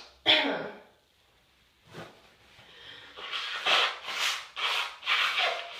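A woman's nose-and-breath sounds during a sneeze fit: a sharp breathy burst just after the start, then after a pause a quick string of five or six breathy hitching breaths, the build-up of a sneeze that does not come.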